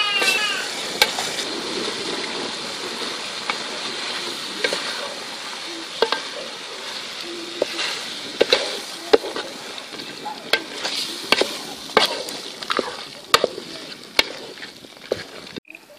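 Curry boiling and bubbling in a steel pot as cooked chicken is tipped in, then stirred with a wooden spatula, which knocks and scrapes against the pot many times. The bubbling hiss slowly fades.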